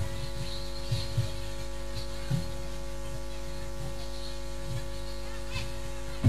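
Steady electrical hum from a sound system's amplifiers, with a few soft low thumps and a louder thump at the very end.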